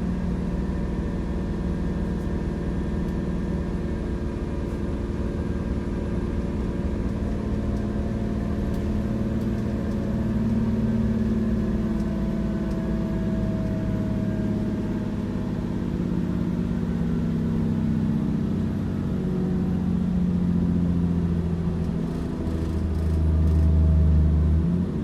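Cat C9 inline-six diesel engine in a motorhome running under load on a chassis dynamometer during a full-power pull on the stock tune. The engine noise swells in stages, is loudest a second or two before the end, then drops off suddenly as the pull ends.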